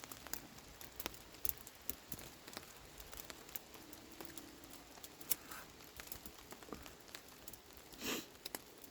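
Raindrops pattering irregularly on a tarp overhead, heard as scattered sharp ticks over a faint hiss, with one brief louder hiss about eight seconds in.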